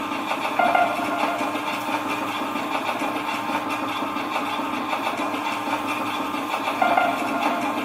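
Experimental sound collage of processed, repeated noise and street recordings: a steady drone like an idling engine, with the same short brighter accent about a second in and again near the end.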